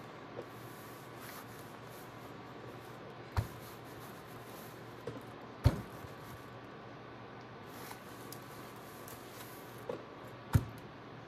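A hot, dry clothes iron being pushed over brown packing paper laid on a towel, melting beeswax pellets into it: a soft, faint rustle of paper. Three sharp knocks are spread through it, with a couple of lighter ticks.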